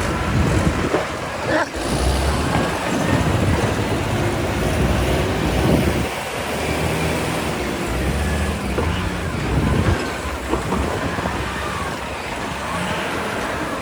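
Excavator's diesel engine running under load, a continuous heavy rumble, with a sharp knock about two seconds in.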